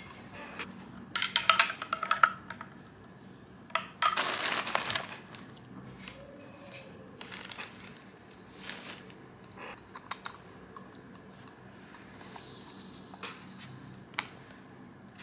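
A tablet in a folding case handled and set down on a textured table mat: two rustling scrapes in the first five seconds. Then scattered soft clicks and taps on a laptop's keys and trackpad.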